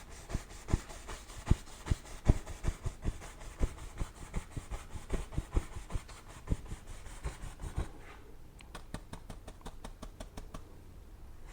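A 2-inch paintbrush tapping and dabbing on a stretched canvas in quick, uneven taps, several a second. The taps grow softer in the last few seconds.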